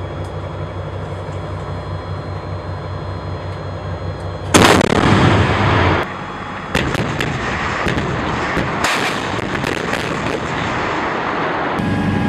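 Steady low engine hum, then about four and a half seconds in a loud self-propelled howitzer shot with a long rumbling tail, followed by a run of further sharp artillery shots as several guns fire. Near the end a vehicle engine's steady hum comes back in under the firing.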